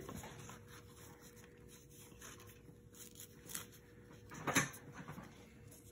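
Faint rustling and scraping of nylon webbing and plastic strap hardware being handled and threaded inside a helmet shell, with a short louder scrape about four and a half seconds in.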